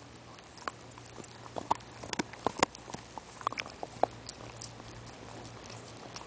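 A dog gnawing a bone: irregular, sharp clicks and crunches of teeth on bone, coming thickest in the middle and thinning out about four and a half seconds in.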